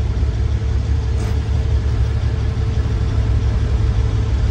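Semi truck's diesel engine running steadily, a low drone with a faint steady hum above it.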